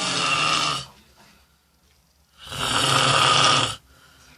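A person snoring loudly in a slow rhythm: one snore ends about a second in and the next starts about two and a half seconds in and lasts well over a second, with quiet gaps between snores.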